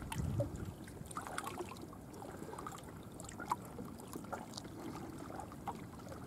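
Faint small waves lapping at the water's edge.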